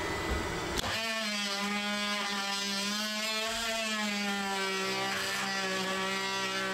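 Oscillating multi-tool switched on about a second in and running with a steady buzz as it cuts the wall studs down to the height of the bottom plate.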